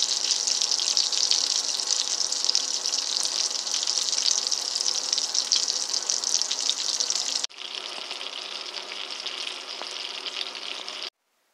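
Sausage links sizzling in hot oil in a frying pan, a dense crackling sizzle. It drops to a quieter level at a cut about seven and a half seconds in, then stops abruptly shortly before the end.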